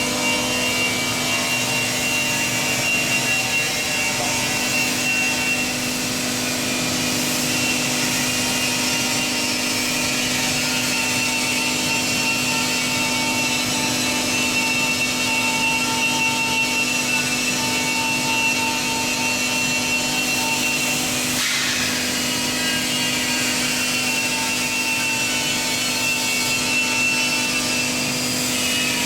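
Pet bedding baler running steadily: a constant motor hum with a thin high whine over a broad hiss, with a brief change in the noise about three quarters of the way through.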